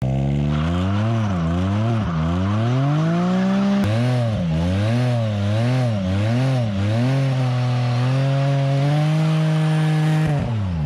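Can-Am Spyder F3-S's Rotax 1330 ACE three-cylinder engine revved hard and let drop over and over, about one to two revs a second, then held high for a couple of seconds before falling away near the end. This is a stationary burnout, with the rear tire spinning and hissing on the asphalt.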